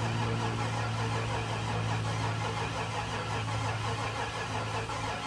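Chevrolet Trailblazer engine being cranked over by the starter, cranking pretty well with a steady, even rhythm but not firing, since there is no gas in the fuel rail yet.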